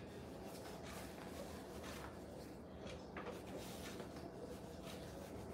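Faint soft rustles and light taps of pizza dough being stretched by hand, over a steady low hum.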